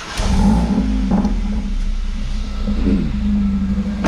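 Mercedes-AMG CLA45's turbocharged 2.0-litre four-cylinder engine just started, flaring up briefly and then running at a steady idle. There is a short knock near the end.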